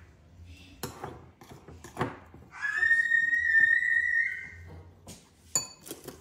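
A metal spoon clinking and scraping against a ceramic bowl as a flour-and-water sourdough starter is stirred. In the middle comes a high whistled note, held for about two seconds after a short upward slide, which is the loudest sound.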